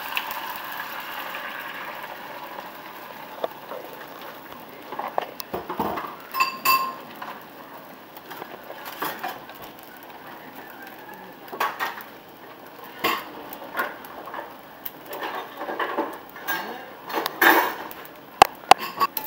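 Beaten egg going into a hot cast-iron skillet of fried corn tortilla pieces: a soft sizzle that fades over the first couple of seconds, then scattered clinks and knocks of a utensil against the skillet and the ceramic bowl, one with a short ring about six seconds in.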